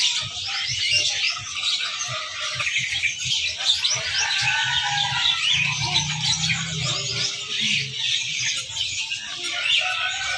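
A dense chorus of many caged songbirds chirping and twittering at once, a continuous tangle of quick overlapping calls.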